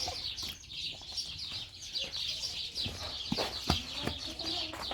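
Many birds chirping at once in a continuous, rapid chatter, with a few sharp knocks about three and a half seconds in.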